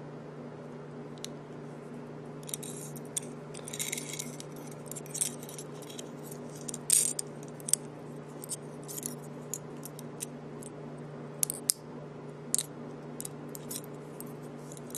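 Small aluminum carabiners clicking and clinking as the gate and locking sleeve are worked by hand, a long run of light, sharp metallic clicks and jingles starting a couple of seconds in, over a steady low hum.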